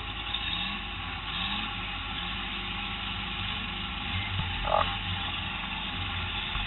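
Stock car engine idling, heard from inside the car, with a short knock a little past the middle.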